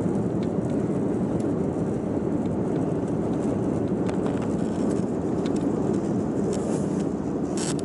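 Steady low rumble of airliner cabin noise, with scattered light clicks and rattles throughout and a small cluster of them near the end.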